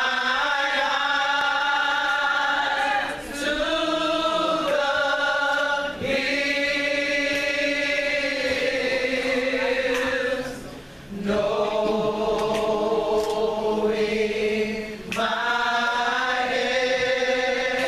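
Gospel vocal group singing in close harmony, holding long sustained chords in several phrases of a few seconds each, with brief breaks between them.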